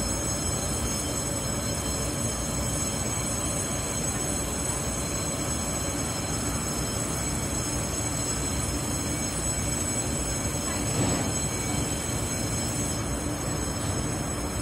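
Taiwan Railways EMU500 electric multiple unit standing at an underground platform, its equipment running with a steady hum and several high, steady whines. There is a brief louder swish about eleven seconds in.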